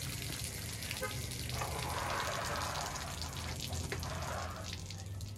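Water spattering steadily onto concrete as a waterlogged reverse osmosis storage tank is drained through its outlet, pushed out by the air pumped into the tank.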